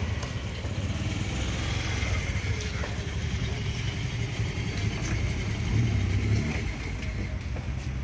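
Steady rumble of road traffic, with motor vehicles or motorcycles running, and a few faint knocks.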